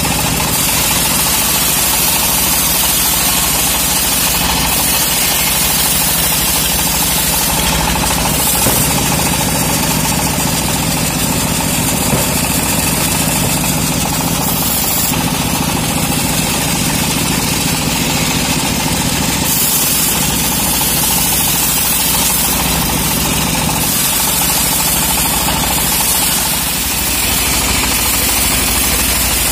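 Homemade bandsaw sawmill running steadily as its blade rips lengthwise through a teak log, a continuous machine drone with a high hiss from the cut.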